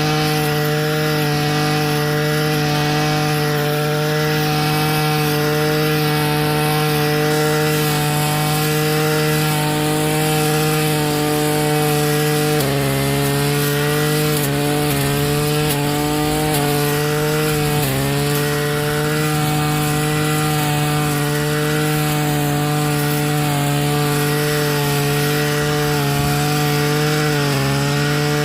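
Petrol weed cutter (brush cutter) engine running at high speed with a steady buzzing note that dips in pitch briefly about halfway through, again a few seconds later and near the end, as the line bogs down cutting through bush.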